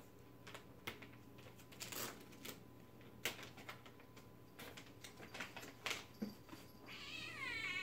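A plastic cat-treat pouch crinkling with sharp little crackles as its tear strip is pulled off and the bag opened. Near the end a cat gives one long, wavering meow.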